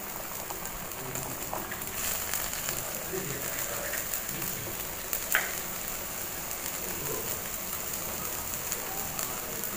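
Seasoned water boiling in a wok with a raw egg poaching in it: a steady bubbling hiss, with a single sharp tap about five seconds in.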